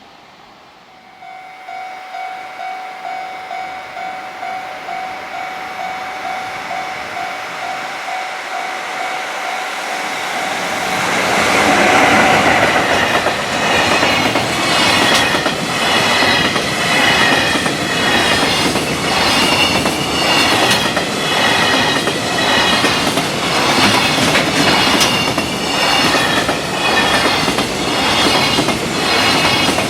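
Level-crossing warning bell ringing about twice a second, then about ten seconds in a freight train arrives at speed and passes close by. Its wagon wheels clatter over the rail joints at the crossing in a steady repeating rhythm.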